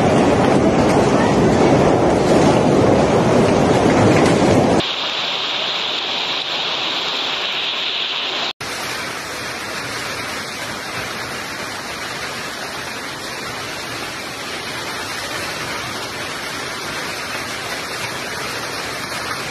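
Heavy hail pelting down on pavement and surfaces, a dense steady hiss of hailstones striking. It is loudest in the first five seconds, then cuts abruptly to other recordings of the same storm about five and about nine seconds in.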